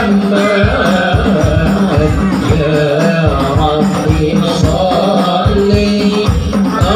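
Hadroh music: frame drums beating a quick, steady rhythm under a wavering melody line.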